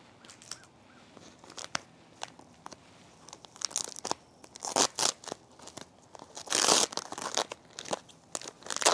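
White wrapping around a shipped plant being pulled open and torn by hand, crinkling and crackling in irregular bursts that begin a few seconds in, with the loudest, longest rustle about two-thirds of the way through.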